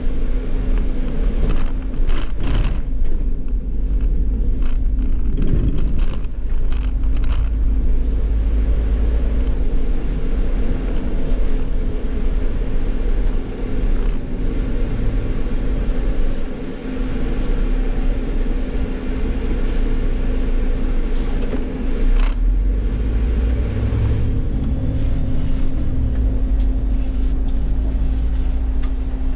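Irisbus Cityclass city bus with its Cursor natural-gas engine, heard from the driver's seat while driving: a steady low rumble with a constant engine tone. Short sharp rattles come in a cluster over the first several seconds and once more about two-thirds of the way through.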